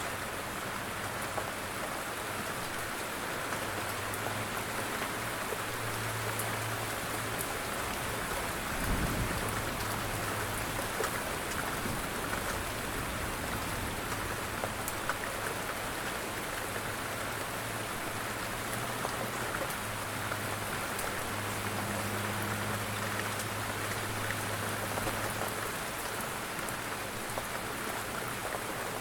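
Steady rain falling and pattering on surfaces in an even hiss, with low rumbles coming and going underneath and a brief stronger one about nine seconds in.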